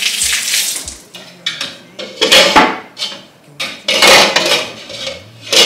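Steel pots, lids and utensils clattering and clinking against each other and the cooktop grate in several separate bursts, after a brief hiss at the start.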